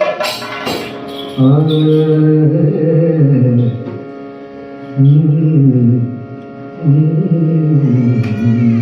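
Kathakali vocal music: a singer's long, gliding sung phrases in three stretches over a steady drone, after a few sharp percussion strikes at the start.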